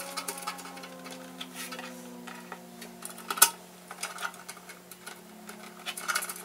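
Small metallic clicks and taps of a screw and nut being threaded together by hand through a metal computer case wall, with one sharper click about three and a half seconds in and a cluster of clicks near the end. A faint steady hum runs underneath.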